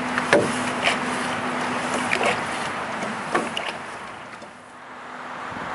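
Solo canoe paddle strokes: a few sharp knocks and splashes, over steady wind noise on the microphone. The overall noise dips briefly near the end.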